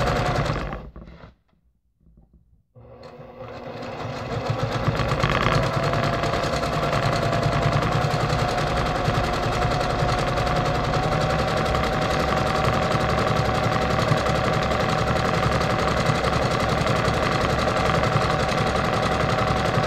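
Brother PQ1500SL straight-stitch sewing machine stitching a free-motion quilting pattern. It stops about a second in, starts again after a couple of seconds, speeds up and then runs steadily.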